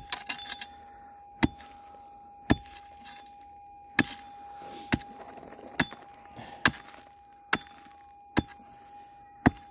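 A pick striking stony creek-bed gravel, about ten sharp clinking blows roughly a second apart, as it digs into the gravel wash layer. A faint steady tone runs underneath.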